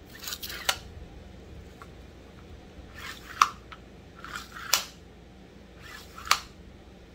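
Husqvarna 272XP chainsaw recoil starter, off the saw, pulled four times by hand. Each pull is a quick swish of rope running out and rewinding, ending in a sharp click. It is a test of the freshly restrung rope with the spring wound six turns on the pulley.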